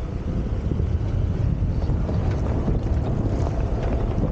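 Wind buffeting the microphone: a steady, gusting rumble heaviest in the low end.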